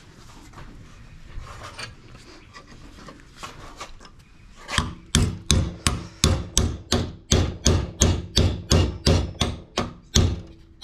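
Hand hammer tapping a small metal piece held in a steel bench vise. The first few seconds hold quiet handling and scraping; then, about five seconds in, rapid even blows begin, about three a second, each with a short metallic ring.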